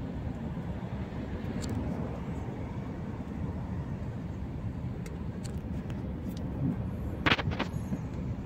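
Steady low rumble of road traffic passing close by, with a brief sharp sound near the end.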